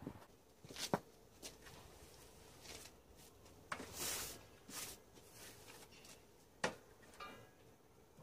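Faint scattered clicks and knocks of tools and parts being handled on a sheet-metal-topped table saw, with a short rustle of a gloved hand wiping across the tabletop about four seconds in; the saw motor is not running.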